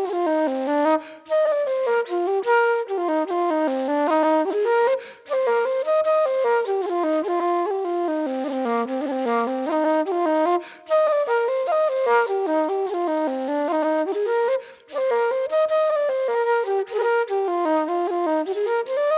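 Instrumental music: a single melody line moving in quick runs up and down, broken by a few short pauses.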